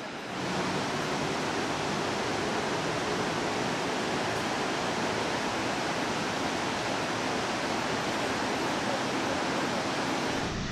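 Iguazu Falls' cascades making a dense, steady rush of falling water with no let-up, stepping up in level a moment after the start.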